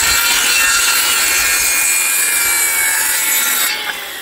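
Corded circular saw cutting across a wooden fence picket, the motor's whine held steady through the cut. About three and a half seconds in the cut ends and the blade winds down with a falling whine.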